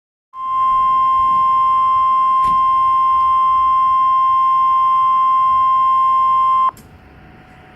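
Emergency alert attention tone: a single steady high beep near 1 kHz, the 1050 Hz warning tone used before weather-radio alerts. It holds unbroken for about six seconds, then cuts off abruptly into faint radio hiss.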